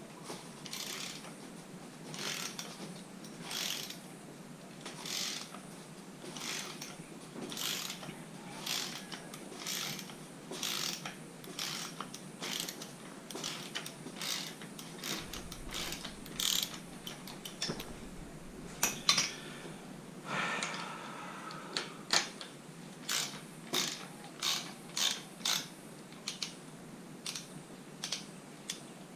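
Ratchet clicking in repeated back-strokes as a T30 Torx bit, tapped into the drilled-out head of a stripped 4 mm Allen bolt, slowly unscrews it. The clicks come about once every two-thirds of a second and get sharper and louder in the last third.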